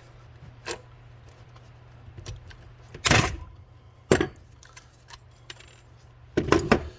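Hand pop rivet tool and aluminium rivets being worked on a leaf blower nozzle: a few sharp metallic clicks and clinks, the loudest about three seconds in, another just after four seconds, and a quick cluster near the end.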